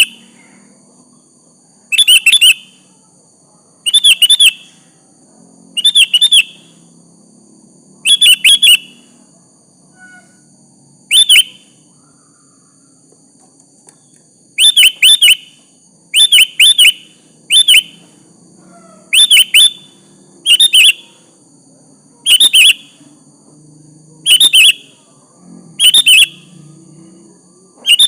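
Sooty-headed bulbul (kutilang) calling: short, bright chirpy phrases of two or three quick notes, repeated about every two seconds, with a pause of a few seconds midway.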